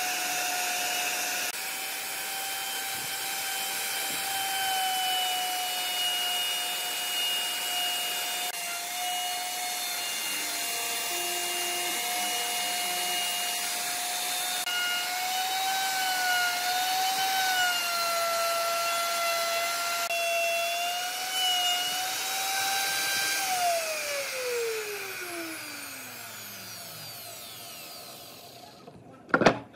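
Electric plunge router running with a steady high whine as it cuts a groove into a wooden disc, its pitch wavering slightly under load. Near the end it is switched off and the whine falls away as the motor spins down, followed by a single sharp knock.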